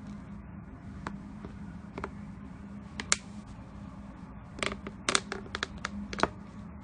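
Slime being squeezed and pressed by hand, giving scattered sharp pops and clicks, with a quick cluster of them over the last couple of seconds, above a steady low hum.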